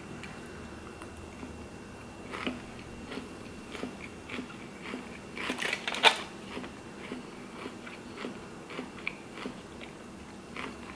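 Close-up chewing and crunching of a mouthful of fresh salad, irregular soft crunches with a louder clatter about six seconds in.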